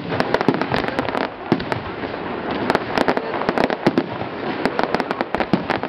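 Aerial fireworks display going off: a dense, irregular run of sharp bangs and pops from bursting shells over a continuous crackling hiss, with a loud bang right at the start.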